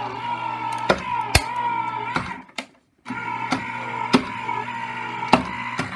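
Sizzix Vagabond 2 electric die-cutting machine running as it feeds the cutting plates through: a steady motor whine with a few sharp clicks. It stops about two and a half seconds in and starts again half a second later.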